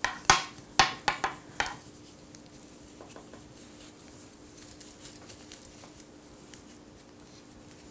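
Wooden knitting needles clicking and tapping against each other as stitches are worked, about six light clicks in the first two seconds, followed by only a faint steady hum.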